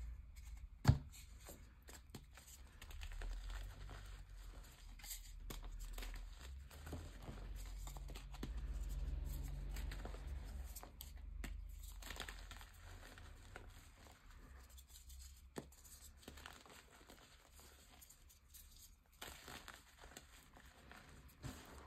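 Reformed gym chalk squeezed and crushed by hand, crumbling into powder with irregular soft crunching and crackling. A single sharp click about a second in is the loudest sound.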